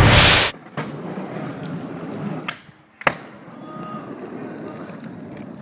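A loud whoosh in the first half-second, then skateboard wheels rolling on concrete. Just before three seconds in the rolling stops briefly and a sharp clack of the board hitting the surface follows, then the rolling goes on steadily.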